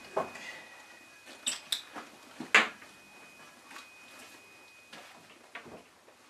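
Scattered light clicks and knocks of objects being handled on an office desk, the sharpest about two and a half seconds in, over a faint steady high whine.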